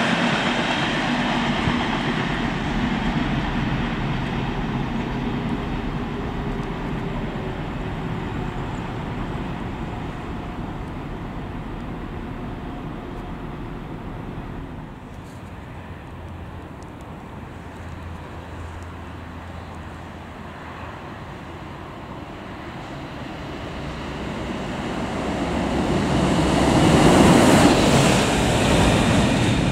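Rumble and wheel noise of a container freight train running away down the line, fading steadily over about fifteen seconds. Near the end a locomotive approaches and passes close by at speed; this pass is the loudest moment.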